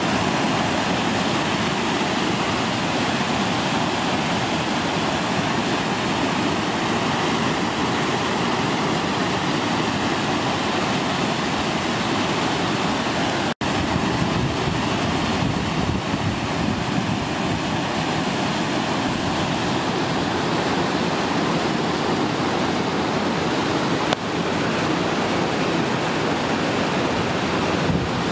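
Floodwater from a stream swollen by heavy rain rushing over a concrete weir and churning below it, a loud, steady rush of water. The sound cuts out for an instant about halfway through.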